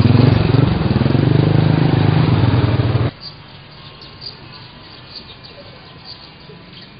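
Small motorcycles running close by as they ride past, their engine note rising and falling; it cuts off suddenly about three seconds in, leaving a quiet outdoor background with faint high chirping.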